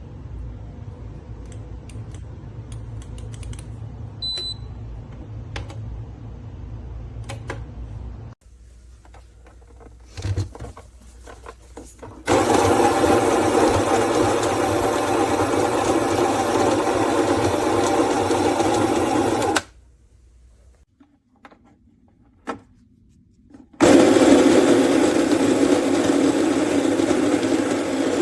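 Baratza Encore ESP electric burr coffee grinder motor running steadily. It starts abruptly about halfway in, runs for about seven seconds, stops suddenly, then starts again near the end. Before it, a few light clicks of handling.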